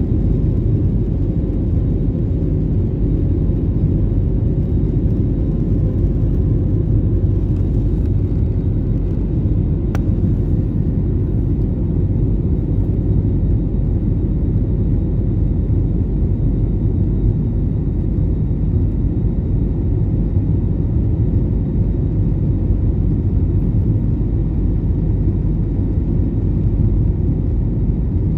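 Jet airliner cabin noise in flight: a steady, loud rumble of the engines and airflow, with a faint steady whine above it. A brief click about ten seconds in.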